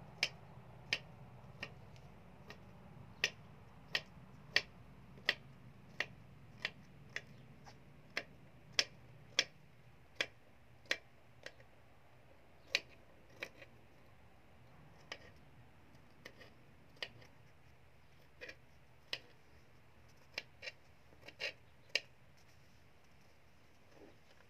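Kitchen knife chopping ginger on a cutting board: single sharp knocks, one or two a second at first, then sparser and more uneven in the second half.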